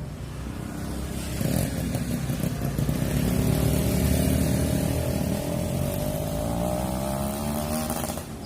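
A motor vehicle's engine passing close by, growing louder, then easing away. The sound drops off abruptly near the end.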